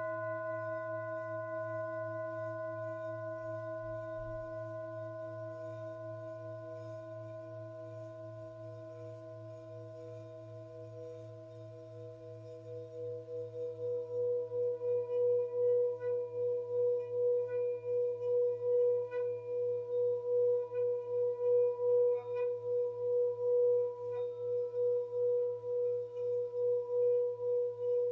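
Tibetan singing bowl ringing: its tones fade slowly over the first dozen seconds, then about halfway through a tone swells up and holds, pulsing with a steady wobble. A low hum runs underneath.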